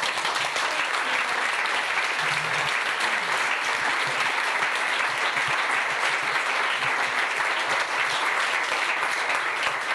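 Audience applauding steadily after a poetry reading, a dense clatter of many hands clapping.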